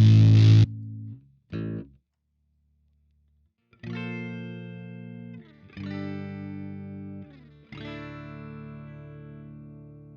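Electric guitar played through the LARAN, a MOSFET-input, muff-style fuzz pedal. A loud fuzzed chord is cut off under a second in, a short note follows, and after a pause three chords are struck about two seconds apart, with the last left ringing and slowly fading.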